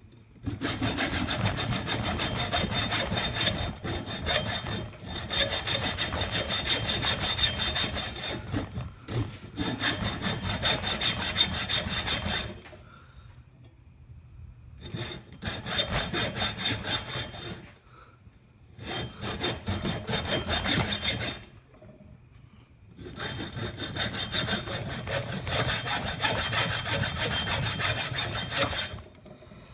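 Hacksaw cutting through a salvaged electric motor's housing with fast back-and-forth strokes, in several spells broken by short pauses.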